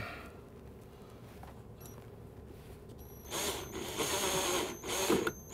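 Cordless drill with a nut-driver bit driving a self-tapping screw through an aluminum L-bracket. The drill runs for about a second and a half starting about three seconds in, then gives a short second burst near the end.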